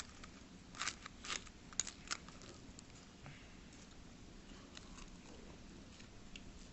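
Chopsticks clicking against a small bowl as food is picked up and eaten: a handful of light clicks in the first two seconds or so, then faint chewing.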